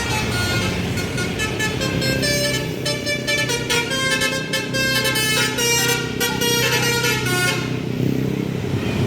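Indonesian bus "telolet" Basuri musical air horn playing a quick tune of stepped notes. The horn stops about eight seconds in, over the steady low running of the bus engine.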